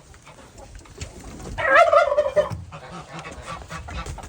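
Poultry in the coop: one loud warbling call, about a second long, starting about a second and a half in.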